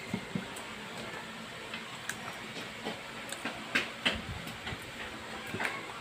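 Raw parrotfish pieces being handled and laid into a cooking pan: scattered soft knocks and clinks of fish, plate and pan, over a steady background hiss.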